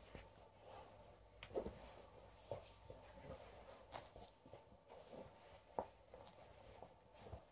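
Faint, irregular small clicks and rustles of an Alaskan Malamute quietly mouthing and chewing a fabric plush toy.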